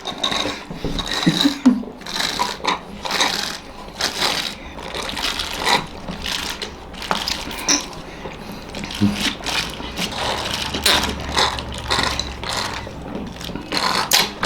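Irregular clicking and clattering of chopsticks against plates as small momos are picked up and eaten.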